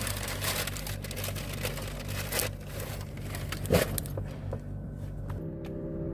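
Rustling and crinkling, as of plastic packaging or a bag being handled, with one sharp knock just before four seconds in. A steady low hum sets in near the end.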